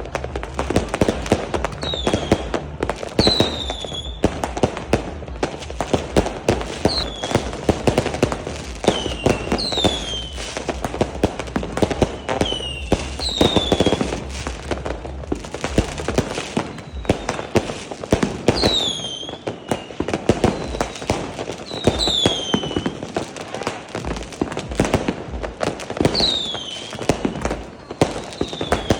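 Fireworks going off continuously: a dense run of crackling and popping explosions, with many short whistles falling in pitch every second or two.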